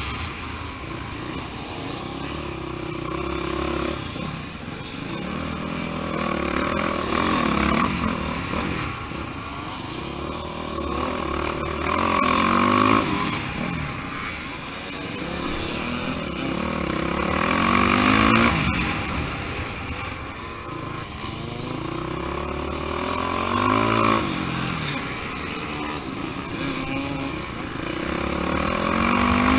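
Dirt bike engine revving up and down over and over, its pitch rising on the throttle and falling off as the rider slows for the tight turns, heard from a camera mounted on the bike.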